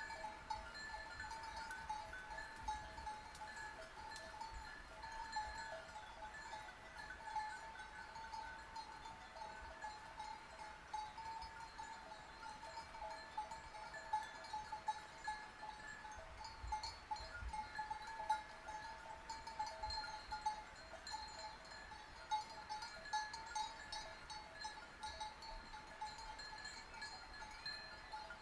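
Bells on a flock of sheep clanking and ringing without pause, many small irregular clanks, now and then a louder one.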